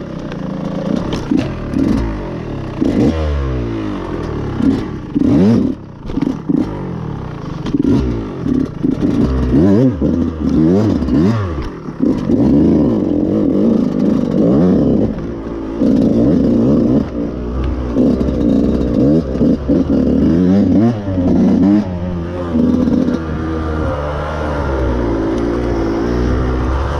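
Dirt bike engine revving up and falling away over and over as the throttle is opened and chopped, with clattering from the bike over rough ground. The rider says its top end is nearly worn out.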